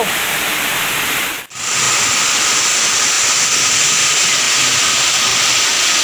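Steady rushing of water pouring over rocks in a waterfall and rocky stream, an even loud hiss, briefly dropping out and resuming about a second and a half in.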